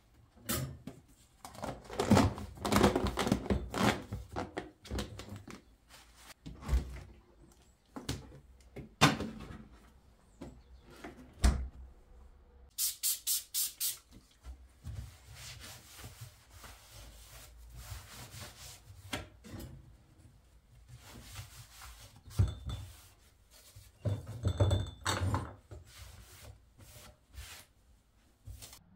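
Kitchen countertop work: a run of knocks and clatter from handling a container, then a trigger spray bottle squirted about five times in quick succession, then a cloth wiping the counter with a few more knocks.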